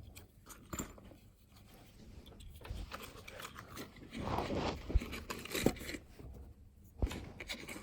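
Hands packing plastic trimmer parts into a soft zippered travel case: rustling and scraping of the case and items, with a few sharp knocks of hard plastic pieces about five seconds in and again near the end.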